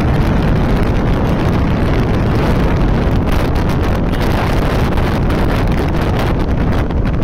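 Steady, heavy wind rumble on the microphone of a Hero Honda CBZ 150cc motorcycle cruising at speed, with the bike's single-cylinder four-stroke engine running underneath.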